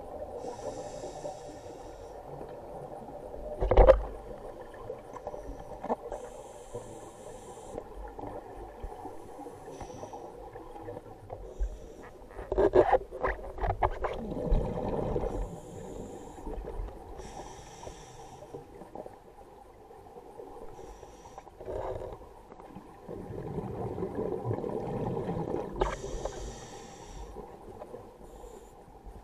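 Scuba breathing heard through an underwater camera: short hissing inhalations through a regulator every few seconds and the bubbling rumble of exhaled air, with one sharp knock about four seconds in.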